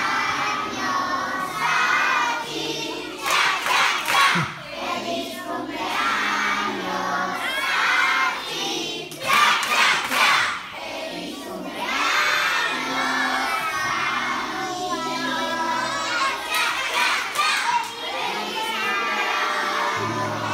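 A large group of children shouting and cheering together in a school gym, rising to louder surges a few times.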